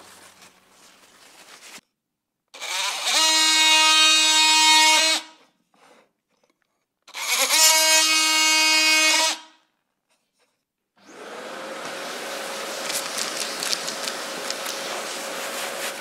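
Cordless brushless oscillating multi-tool cutting a plastic dowel pin flush with a hardboard panel: two runs of a couple of seconds each, each spinning up quickly to a steady high buzz. About eleven seconds in a longer, steadier, hissier power-tool run starts.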